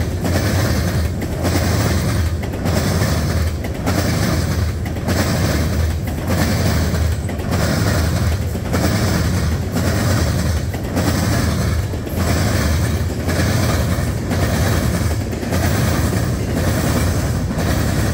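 Double-stack intermodal freight train rolling past close by, the wheels of its loaded well cars running over the rails in a loud, steady, evenly repeating rhythm.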